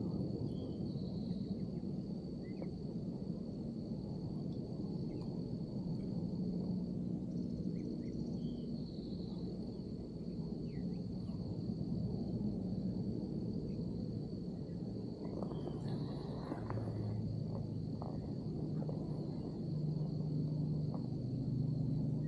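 Steady high-pitched insect trill over a constant low rumble, with a few faint bird chirps. A stretch of rustling comes about two-thirds of the way through.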